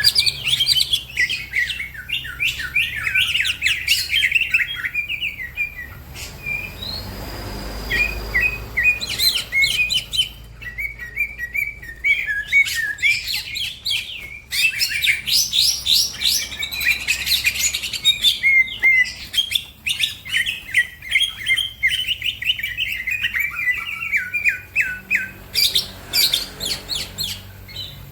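Green leafbird (cucak ijo) singing in long, fast runs of sharp, rapid chirps and trills, with a couple of brief pauses.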